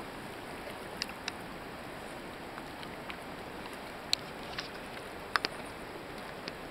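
Steady rush of river water flowing over a shallow riffle, with a few sharp clicks scattered through; the loudest two come close together about five seconds in.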